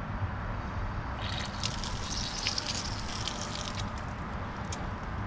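Water from a garden hose spraying and splashing as it rinses out a pool-cleaner filter clogged with debris, heaviest from about a second in until near four seconds.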